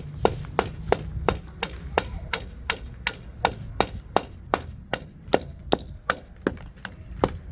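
A steady run of sharp chopping knocks, about three a second, typical of a knife chopping on a board.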